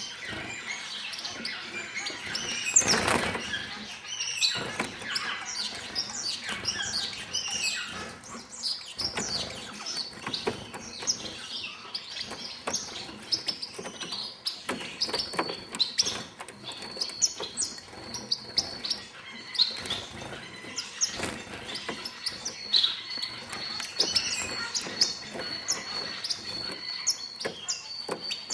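A flock of star finches chirping: many short, high, downward-sweeping calls overlapping, with frequent small ticks and a louder flurry about three seconds in. A thin, steady high tone joins the calls about halfway through.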